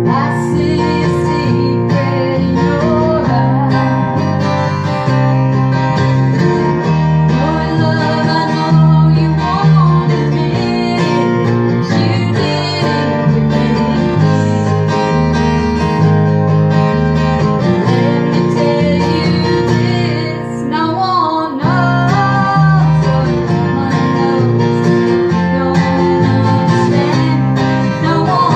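Band music led by strummed acoustic guitar, playing continuously with a short dip in level about 20 seconds in.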